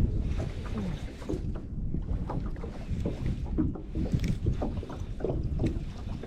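Wind buffeting the microphone as a low rumble, with small waves slapping irregularly against the boat's hull.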